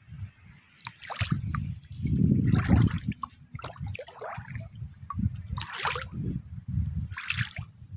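Footsteps squelching and splashing through soft tidal mud and shallow water, several irregular wet steps.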